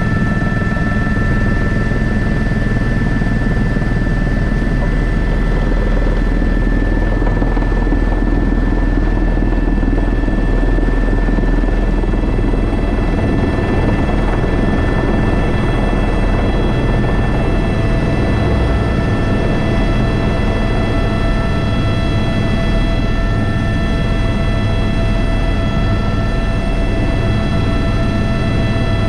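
Airbus H125 (AS350 B3) helicopter heard from the cockpit, its single Arriel 2 turboshaft and rotor running steadily under power. A deep rotor rumble sits beneath several thin, high turbine whines, and one more tone joins about two-thirds of the way through.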